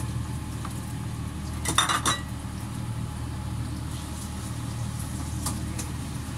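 Kitchen dishes and utensils clattering briefly about two seconds in, with a few light clinks later, over a steady low hum.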